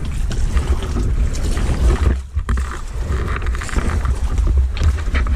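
Wind rumbling on the microphone, over shallow water splashing and sloshing around the legs of someone wading; the rumble drops out briefly about two seconds in.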